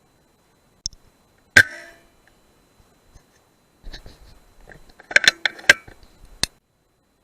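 A single sharp crack with a short metallic ring about a second and a half in, typical of an air rifle shot. Near the end comes a quick run of sharp clicks and knocks.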